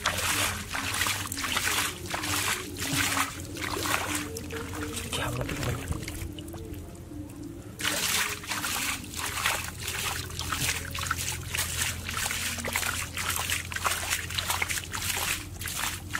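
Hands sloshing and scooping through a shallow muddy puddle, splashing in quick repeated strokes, with a pause of about two seconds a little past the middle.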